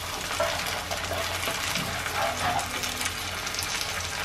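Tomato paste sizzling in hot oil over frying onions in a nonstick pan, stirred and spread with a wooden spatula, with a few faint scrapes.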